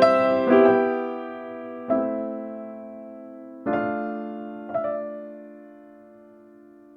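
Background music of slow, soft piano: a few chords struck one after another, each left to ring and fade, dying away near the end.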